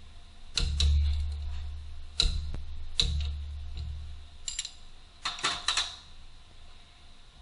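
A series of irregular sharp clicks and knocks, some with a dull thud, and a quick cluster of them near the end.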